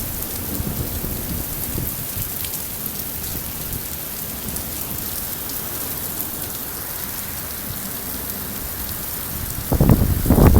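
Steady rain falling hard during a summer thunderstorm, with a louder burst of low rumbling noise near the end.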